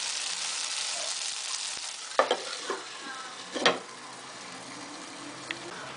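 Potato and tomato curry sizzling in a pan, with two sharp metal clanks as the lid goes on, after which the sizzle is a little quieter.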